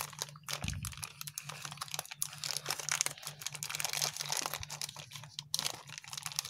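Plastic poly mailer bag crinkling and crackling as fingers pick at and tear open its sealed edge, in many quick irregular crackles.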